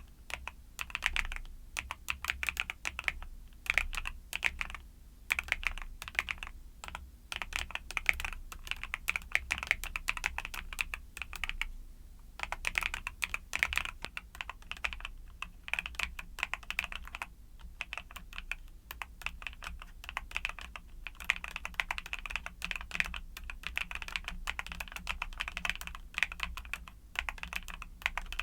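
Typing on a YUNZII mechanical keyboard with Cocoa Cream switches: a fast, continuous patter of key clicks, broken by short pauses about twelve and eighteen seconds in.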